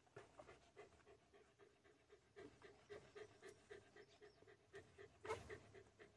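Faint, rhythmic sounds, about three a second, from puppies nursing at a mother dog.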